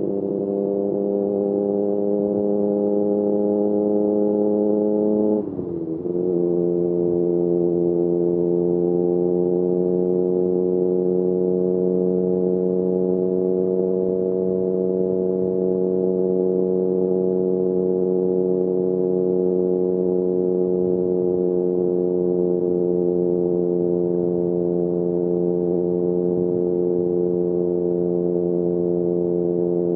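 Triumph Street Triple RS's 765 cc inline three-cylinder engine running through an SC Project S1 slip-on exhaust under steady riding load. About five seconds in there is a quick gear change: the note briefly drops away, then settles lower and climbs slowly again.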